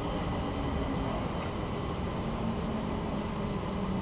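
Stockholm metro train heard from inside the carriage: a steady rumble of wheels and running gear, with a low motor hum that falls in pitch as the train slows through a station. A faint high whine sounds briefly about a second in.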